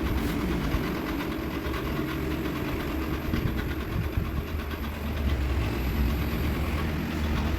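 Robot vacuum cleaner running in auto-cleaning mode: a steady motor and suction-fan hum with a thin high whine over it.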